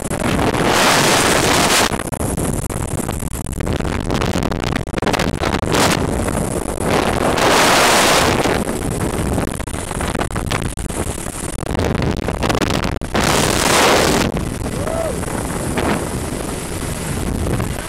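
Wind rushing hard over the microphone while hanging in a sling beneath a flying helicopter: a steady roar of air with three louder gusts, about a second in, near the middle, and about two-thirds through. The helicopter's running noise sits underneath.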